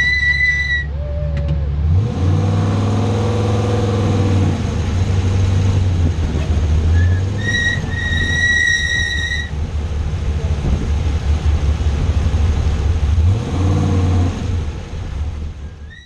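Off-road race truck's engine running at low speed from on board, with a steady low rumble and two revs that rise and fall, about two seconds in and again near the end. A steady high whistle-like tone sounds for the first second and again for about two seconds midway, and the sound fades out at the very end.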